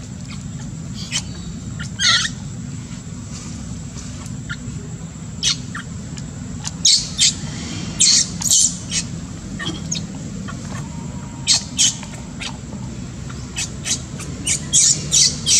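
Baby macaque giving short, high-pitched squeals and squeaks in repeated clusters while being pulled and handled by older monkeys, over a steady low hum.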